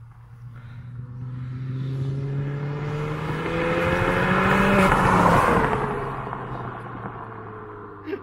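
Ford Fiesta ST with an upgraded Revo RT330 turbo accelerating hard toward the listener, its engine note climbing steadily. It passes close about five seconds in, where it is loudest, then the pitch drops and the engine fades as the car drives away.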